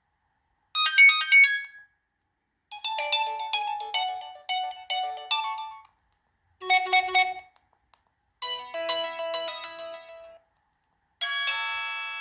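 Preloaded ringtones of an LG AX565 mobile phone: five short synthesized melodies played one after another, each cut off after a second or a few seconds, with silent gaps between them.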